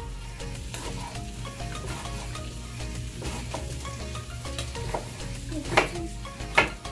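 Lobster and seafood sizzling steadily in a frying pan, with a knife chopping onion on a wooden cutting board: two sharp knocks near the end.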